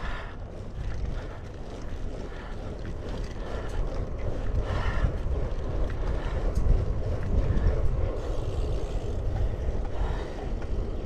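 Wind rushing over the microphone of a moving road bicycle's camera: a steady low rumble.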